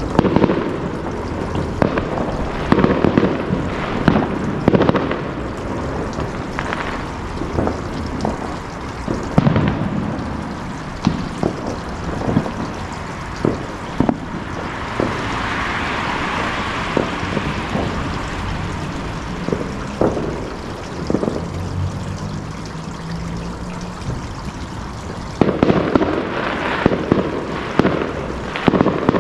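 Fireworks going off: a run of sharp bangs and pops, thickest near the start and the end, with a few seconds of crackling hiss about halfway through.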